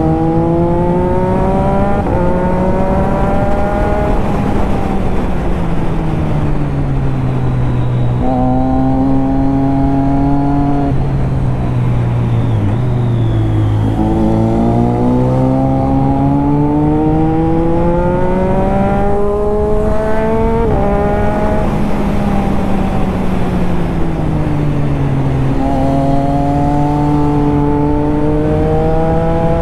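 Triumph Daytona 675's three-cylinder engine under way, revving up and down. Its pitch climbs under acceleration, drops suddenly at gear changes and falls away as it slows, several times over, then holds fairly steady near the end.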